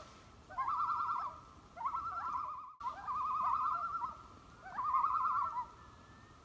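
Common loon giving its tremolo call: four quavering phrases, each with a short rising slur into a fast, even warble.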